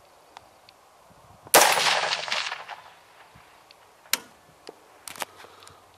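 A single shot from a scoped AR-15-style rifle about a second and a half in, its report trailing off over about a second. A few faint sharp clicks follow near the end.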